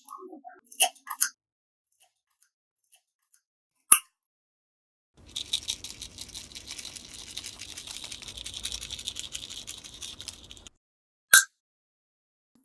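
Slime being squeezed and worked, a dense wet crackling that runs for about five seconds in the middle, with single sharp clicks before and after it.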